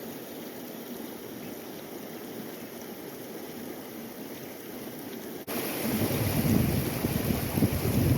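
Fast river water rushing steadily over a small rapid. About five and a half seconds in, it turns abruptly louder and rougher, with wind rumbling on the microphone.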